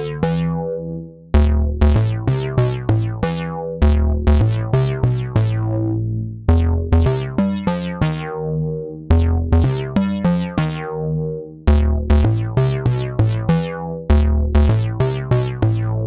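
Synth bass from IK Multimedia Syntronik's J-60, a software emulation of the Roland Juno-60, playing its 'Surprise Bass' preset. A repeating sequenced phrase of short, plucky notes, each with a bright attack that dies away quickly, restarts about every two and a half seconds.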